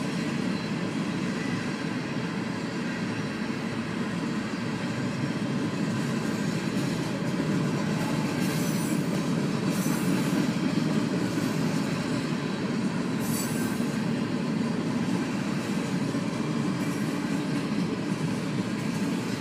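Freight train cars rolling steadily past over the tracks, a continuous rumble of wheels on rail, heard from inside a car. A few short high-pitched wheel squeals come through about halfway through.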